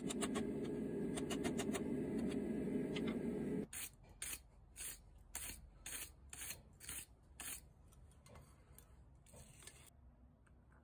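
A steady low rumble with faint light taps, cutting off suddenly about a third of the way in. Then a steel wire brush scrubs the forged iron cloak pin on the anvil face: about eight quick scratchy strokes, roughly two a second.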